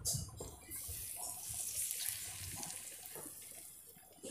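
A raw egg sizzling in hot oil in a wok: a high hiss that slowly dies down over a few seconds.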